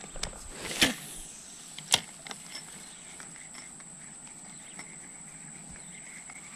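Steady high-pitched drone of swamp insects, with a second fainter insect tone joining near the end. A brief swish about a second in and a single sharp click about a second later.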